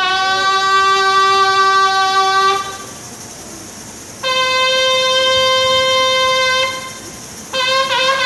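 Shofar blasts, the ram's-horn call that proclaims the jubilee. There are two long steady blasts, the second higher than the first, and a third blast begins near the end with a wavering pitch.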